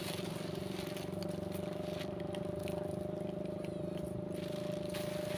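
Steady engine hum, an idling motor running evenly with a constant pitch.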